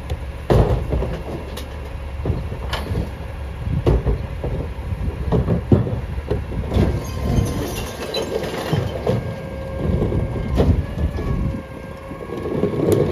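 Mack LEU CNG rear-loader garbage truck with a McNeilus body packing recycling: irregular knocks and clatter from material going into the hopper and the packer, over the engine's rumble. A steady hum comes in about halfway, and a rush of crushing noise builds near the end.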